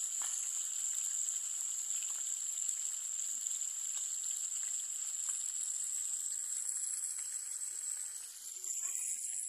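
Whole tilapia frying in hot oil in a frying pan on a portable gas stove: a steady sizzle that stops abruptly near the end.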